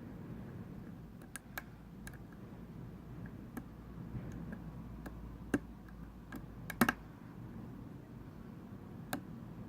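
Small, irregular metal clicks of a lock pick working the pin tumblers of a Corbin five-pin half cylinder, with a sharper double click about two-thirds of the way through, over a faint low hum.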